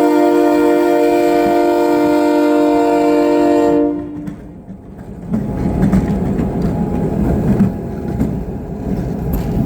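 Locomotive air horn sounding one long chord that cuts off about four seconds in; after a short lull, the low rumble of the train rolling past, with light clicking of wheels over the rails.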